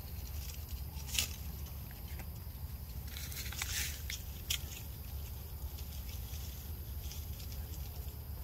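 A few short dry rustles and scratches, about a second in and again around four seconds in, over a steady low rumble.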